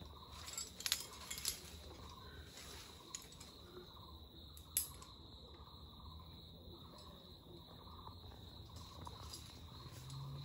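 Insects chirring steadily on one high note, with a few sharp clicks about a second in and one more about five seconds in.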